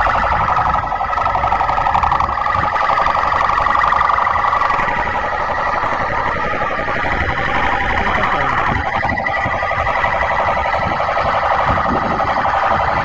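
Police vehicle siren sounding a rapid pulsing electronic tone, with vehicle engine and road rumble beneath.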